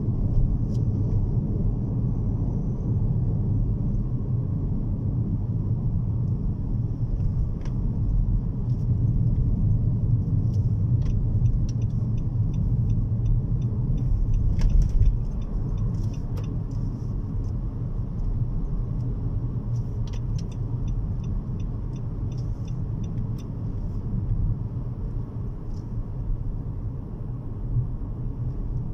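Car driving, heard from inside the cabin: a steady low rumble of engine and road noise, with a few faint clicks and two short runs of quick light ticking.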